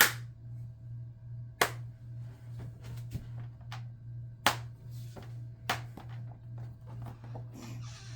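Four loud sharp clicks, one to three seconds apart, with a few fainter ticks between them, over a steady low hum.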